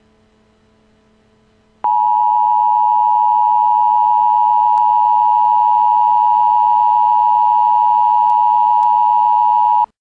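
Emergency Broadcast System two-tone attention signal: a loud, steady pair of tones (853 and 960 Hz) comes on abruptly about two seconds in, over a faint hum, and cuts off sharply near the end. It is the alert that comes before an urgent emergency bulletin.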